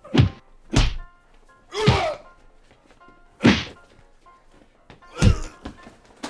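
Punch and slap hits from a staged fistfight: four sharp smacks spread over the few seconds, with a longer, noisier burst about two seconds in, over faint background music.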